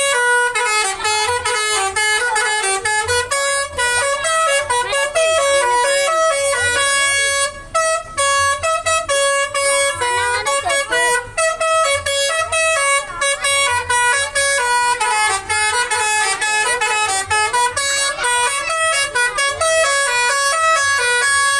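Basuri telolet horn on a Dewi Sri bus playing a loud melody: several horn tones sounding together, stepping from note to note several times a second, with one brief break about seven and a half seconds in.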